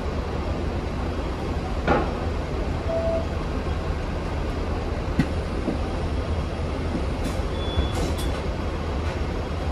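Hong Kong Tramways VVVF tram running with a steady low rumble, broken by a few sharp knocks, the loudest about two seconds in.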